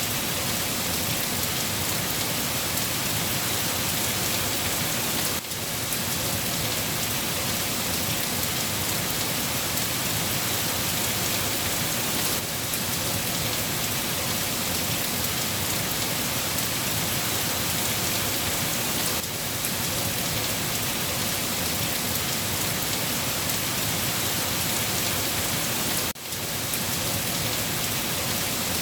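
Steady rain falling on a surface, a dense, even hiss of raindrops with no let-up, dipping briefly about every seven seconds.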